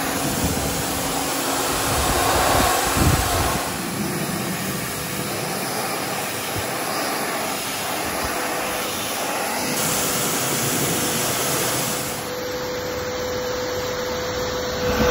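Kärcher pressure washer running, its high-pressure water jet hissing steadily against the slats of a louvred roller shutter. A faint steady whine joins in near the end.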